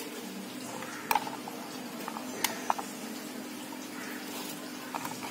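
A few light clicks and taps as pieces of chopped onion, garlic and ginger are dropped by hand into a stainless-steel mixer-grinder jar, over a steady low hum.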